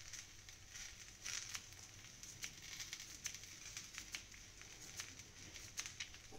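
Kitchen knife slicing a peeled white radish into rounds on a plastic cutting board: faint, irregular crisp taps as the blade cuts through the radish and meets the board.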